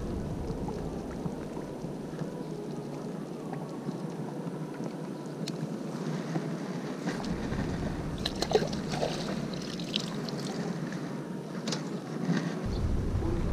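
Steady wind noise on the microphone, with scattered light clicks and rustles in the second half as the landing net, fish and line are handled.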